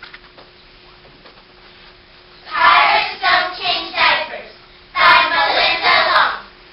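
Children's verse choir voicing lines of verse together in unison, in two short chanted phrases: the first about two and a half seconds in, the second about five seconds in.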